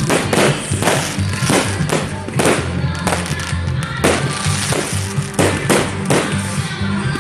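Aerial firework shells bursting in quick succession, about two sharp bangs a second, over music with a steady bass line.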